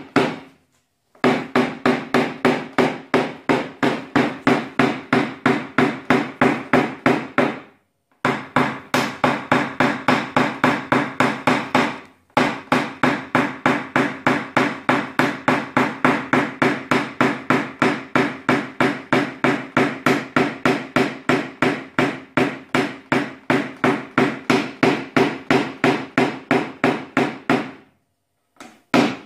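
Paintless-dent-repair knockdown punch being tapped with a hammer against a car door's sheet-steel skin, about four quick ringing taps a second, in runs with brief pauses. It is knocking down the high spots (crowns) around a crease in the door.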